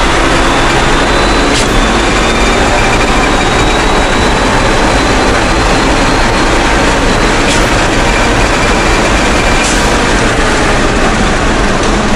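Daihatsu Copen race car with a dog-engagement gearbox, heard from inside the cabin under hard acceleration: loud, steady engine and road noise, with a thin high whine that rises slowly in pitch as speed builds.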